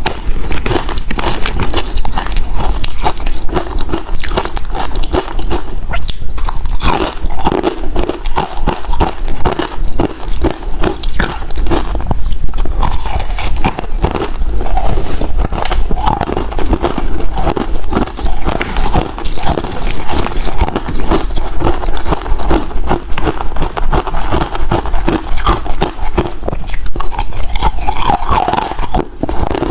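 Ice being bitten and chewed, a dense, unbroken run of sharp crunches and cracks.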